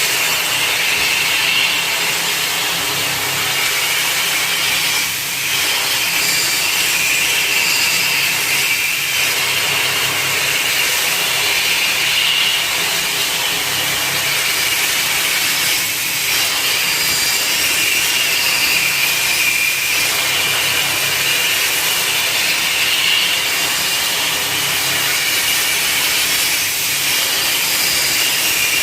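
CNC machine cutting: a steady, loud mechanical whine with rushing cutting noise, easing briefly about five seconds in.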